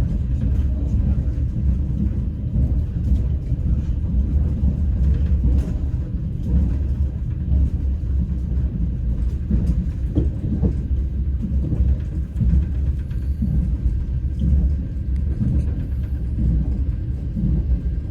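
Passenger train running along the rails, heard from inside the carriage: a steady low rumble with faint scattered clicks of wheels on the track.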